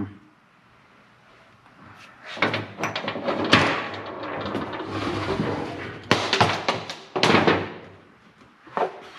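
Irregular knocks and rattling from work on a Can-Am Maverick 1000 engine, a soft hammer tapping the cylinder to break it loose from the cases. There is a sharp knock at the start, a run of knocks and clatter from about two and a half to six seconds in, two heavy knocks at about six and seven seconds, and a lighter one near the end.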